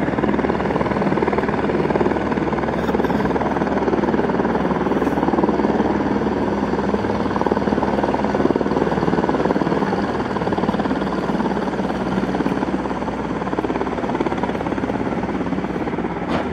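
Steady engine noise, loud and unbroken.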